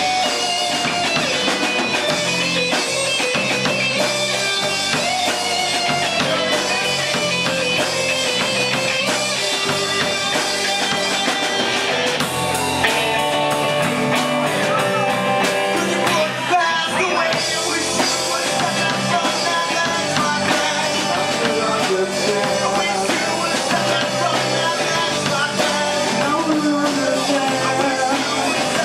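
Live rock band playing a song, with guitar, drum kit and a singer, at a steady level.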